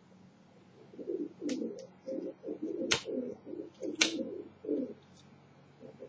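Pigeon cooing: a run of low rolling coos lasting about four seconds, broken by a few sharp clicks, the loudest about three and four seconds in.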